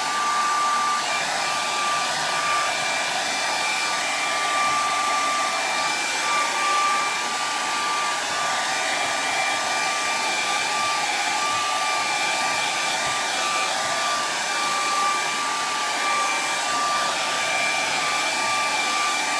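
Handheld hair dryer running steadily, drying wet paint: a rush of air with a steady high whine.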